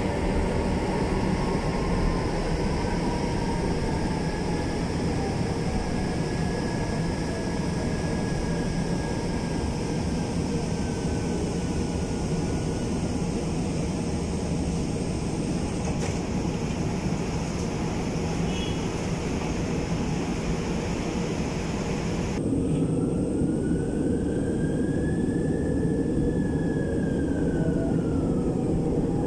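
Inside a moving MRT-3 light-rail train: steady running rumble of the car on the track, with an electric motor whine that rises and then falls in pitch twice. About 23 s in, the sound changes abruptly and the upper hiss drops away.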